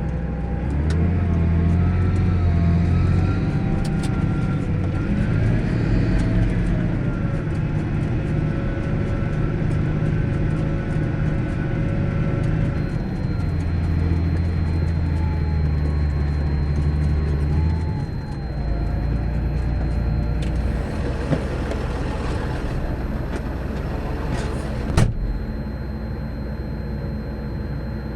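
A large John Deere farm tractor's diesel engine running steadily, its pitch wavering up and down as the load changes. There is one sharp click near the end.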